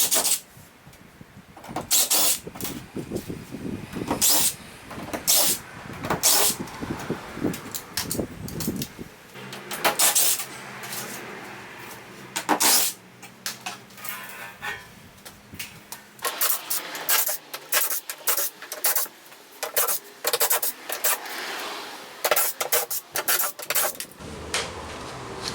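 Irregular knocks, bangs and clatter of wood and tools as a wooden skate ramp section is taken apart.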